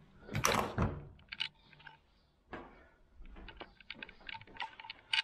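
Handling noise while a bicycle saddle is fitted: a loud rustle in the first second, then a run of small, sharp clicks and knocks of the saddle's rails against the seatpost clamp.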